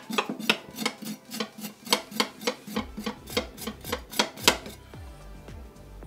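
Kitchen knife scraping the charred skin off roasted cocoyam: quick, sharp strokes about four a second that stop about four and a half seconds in. Background music with a plucked bass line plays underneath.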